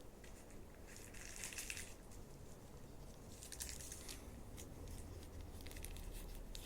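Toy packaging crinkling and tearing softly as it is opened slowly, in a few short bouts.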